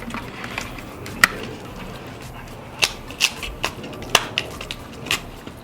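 Irregular sharp clicks and light knocks, about seven in all and the loudest about a second in, from the floodlight camera and its accessories being handled.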